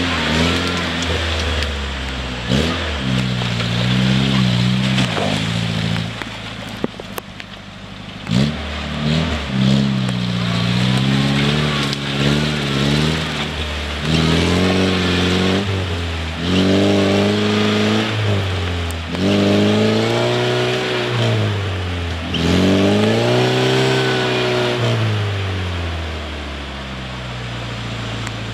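Toyota trail truck's engine revving hard again and again, each rev rising and falling over a second or two, while its mud tires spin in deep mud as it tries to climb out.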